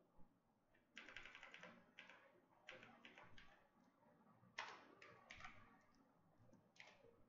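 Faint computer keyboard keystrokes in several short clusters of rapid clicks, with pauses between them.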